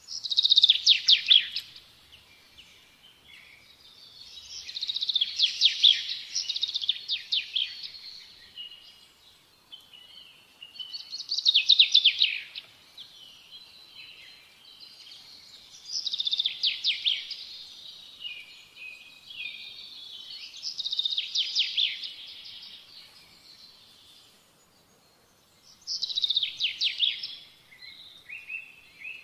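A songbird singing in about six phrases of rapid chirps and trills, each lasting one to three seconds, with short pauses between them.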